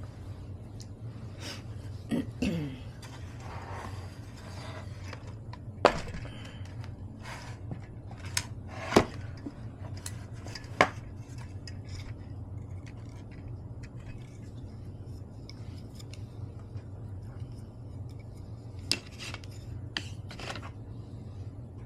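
Eating utensils clinking and tapping against bowls during a meal, several sharp separate clinks over a steady low hum. A short sound falling in pitch comes about two seconds in.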